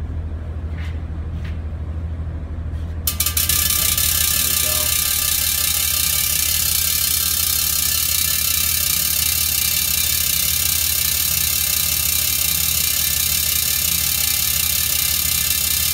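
A high-voltage plasma reactor switching on: about three seconds in, its electrodes start discharging over the water with a sudden loud, steady high-pitched buzzing hiss that holds on. Underneath there is a steady low hum, with a few light clicks before the discharge starts.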